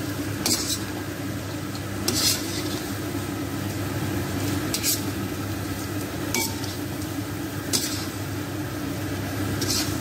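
Chicken and masala sizzling in oil in a karahi while being stirred, with a scrape of the stirring utensil against the pan about every second and a half over a steady sizzle.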